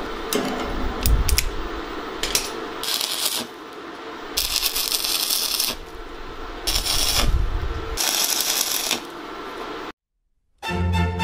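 Metal clicks and knocks from locking pliers clamping steel frame tubing, then stick arc welding in four crackling, hissing stretches of about half a second to a second and a half each. Music starts near the end after a brief silence.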